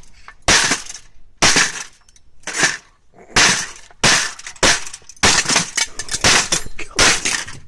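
Parts of an HP LaserJet 1300 printer being forced and broken apart: about ten sharp cracking and crashing noises of plastic parts snapping and smashing, in quick, irregular succession.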